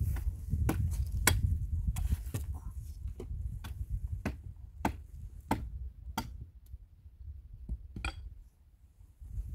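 A steady series of about a dozen sharp knocks, roughly one every 0.6 seconds, from repeated striking with a hand tool; they stop about a second before the end. A low rumble runs under the first few seconds.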